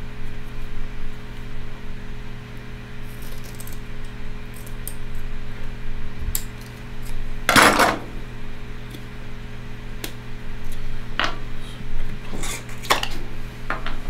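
Handling noise as an old rubber tube is worked free of a Van Dorn sampler's plastic fittings: scattered small clicks and clinks, with one louder half-second scrape about halfway through, over a steady low hum.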